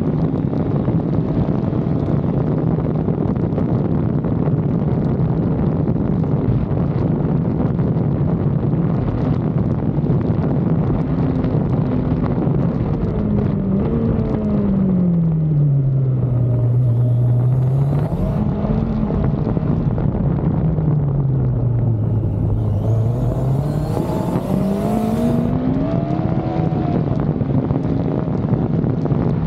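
Yamaha FJ sidecar's inline-four engine under way at speed, with heavy wind rush on the onboard microphone. In the second half the engine note drops and climbs back up twice as the revs fall and pick up again.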